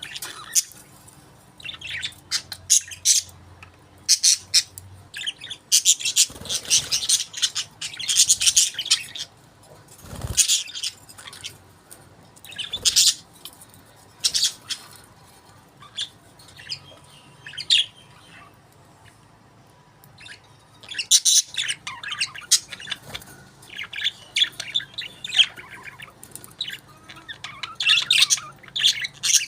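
Budgerigars chirping and chattering in bursts of quick high calls, with a sparser spell around the middle.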